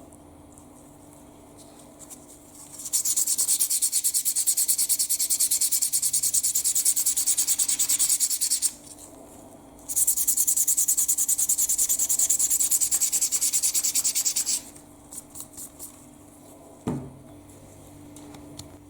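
Fast back-and-forth abrasive scrubbing on the metal of an old doorbell part, as paint and rust are being stripped by hand. It comes in two spells of about five seconds each, many strokes a second, then a few short strokes and a single knock near the end.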